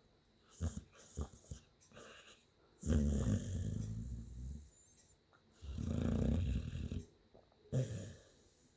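A sleeping dog snoring: two long snores, each about a second and a half, with a few short noisy breaths before them and another near the end.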